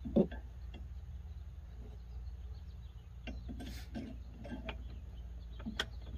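Light metal clicks and knocks of an aluminum grab handle, its spacers and bolts being fitted by hand against a Jeep Wrangler's roll bar. One sharper knock comes just after the start, and the scattered clicks come in the second half.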